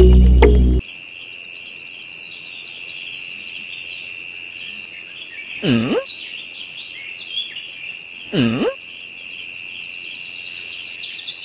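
Outdoor nature ambience: a steady high insect buzz under scattered bird chirps, with two short swooping calls that dip low and rise again, about six and eight and a half seconds in. A music track cuts off just under a second in.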